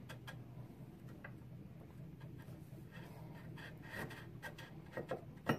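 Greased AR-15 barrel being slid into the upper receiver: faint metal scraping and light clicks, then one sharp metallic click near the end, a ping as the barrel extension's pin drops into the receiver's notch and seats.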